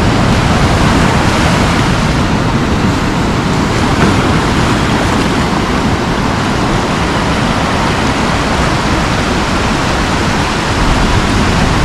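Ocean surf breaking and washing up the beach: a loud, steady rushing noise.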